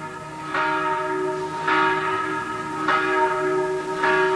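A single church bell tolling slowly: four strikes about a second and a quarter apart, each ringing on into the next.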